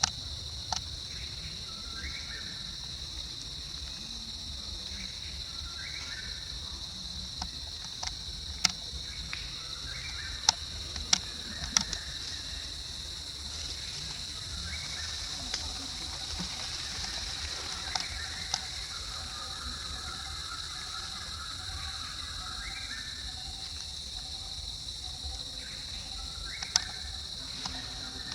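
Steady high-pitched insect chorus, with a handful of sharp clicks scattered through it.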